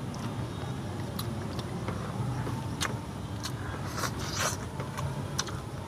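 Close-up eating sounds: sharp mouth clicks and wet chewing as a handful of rice and chicken stew is eaten, with a denser spell of chewing about four seconds in, over a steady low rumble.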